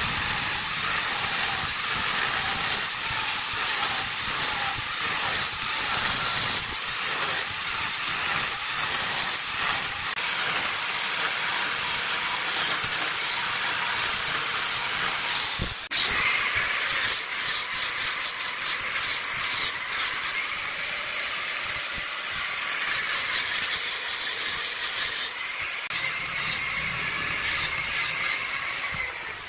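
Handheld angle grinder with an abrasive sanding disc, grinding and sanding the end grain on top of a turned wooden vase: a steady high hiss with a motor whine. It breaks off briefly about halfway through and changes again near the end.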